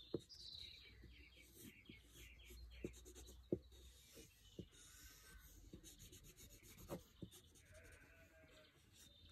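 Faint scratching of a graphite stick on drawing paper as short, quick sketching strokes are made, with a fast run of strokes about a second in and occasional light taps of the tip.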